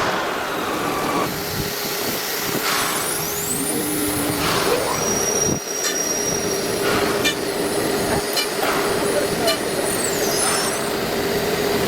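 CNC router machine running, a steady mechanical drone with high motor whines that rise, hold and fall. Short bursts of air hiss and knocks come every second or two.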